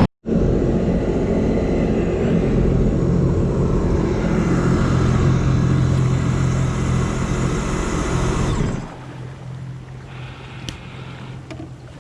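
Jet ski engine running hard at speed, with wind and water noise; about nine seconds in it drops off sharply as the throttle comes off, leaving a quieter steady engine sound.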